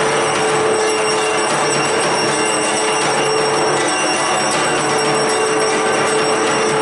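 Dense, continuous ringing and clanging of puja bells, over a steady held tone that drops out for about a second near the middle.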